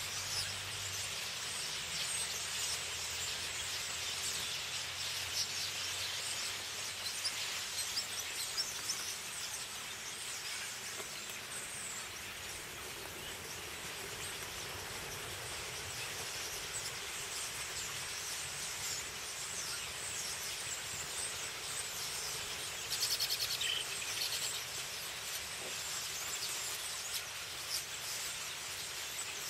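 A large flock of common starlings chattering together at a roost, a dense, steady hiss of many overlapping calls. A louder, rapid rattle stands out about three quarters of the way through.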